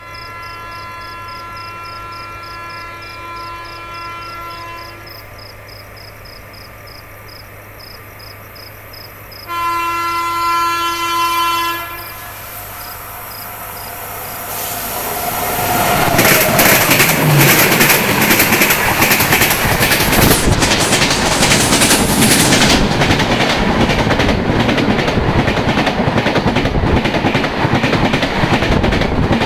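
A WAP-7 electric locomotive's horn sounds as the superfast train approaches on the adjacent track: one held blast, then a louder one about ten seconds in. From about fifteen seconds the train passes close at full speed, a loud rushing rumble of wheels and LHB coaches with rapid clickety-clack over the rail joints.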